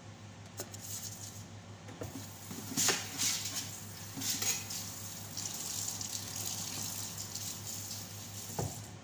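Kitchen sink tap running over a knife being rinsed: a steady splash of water through the second half that stops shortly before the end. Before it, a few clinks and knocks of the knife and dishes on the counter.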